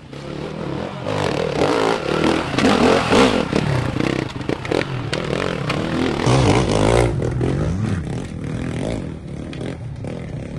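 Enduro dirt-bike engines revving hard in bursts, the pitch rising and falling as the bikes climb over rock, with scraping and clatter.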